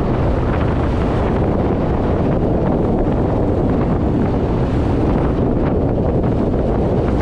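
Steady wind noise on the microphone aboard a boat under way at sea, over the dense rush of water churned along the hulls.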